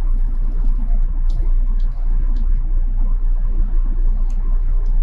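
Steady low machine hum and rumble, with a few faint light clicks scattered through it.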